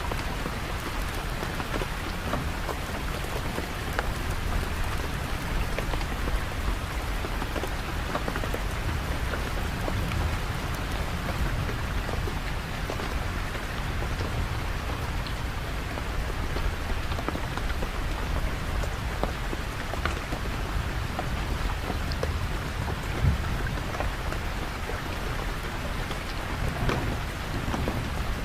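Steady heavy rain falling on surfaces, with many individual drops ticking over a continuous low rumble. A single sharper drop or knock stands out about two-thirds of the way through.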